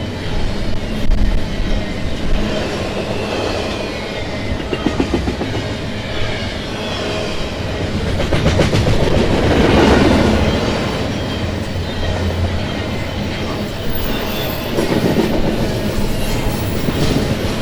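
Freight train cars rolling past at speed, a steady rumble with the wheels clacking over rail joints, loudest about ten seconds in.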